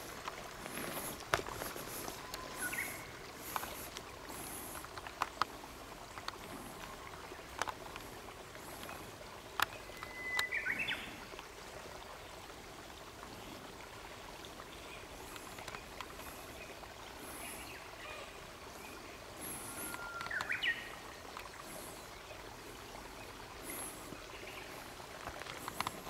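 Quiet outdoor ambience of faintly trickling water with scattered light clicks, two short warbling bird calls about ten and twenty seconds in, and faint high-pitched chirps now and then.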